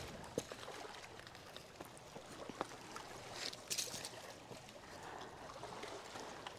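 Faint Hudson River water lapping at a rocky shore, with a few light clicks of stones shifting underfoot and a brief hissy swell about halfway through.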